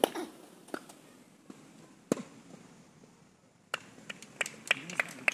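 Tennis ball hits: a few separate sharp knocks, the loudest about two seconds in, then near the end a quick run of light pinging taps, about four a second.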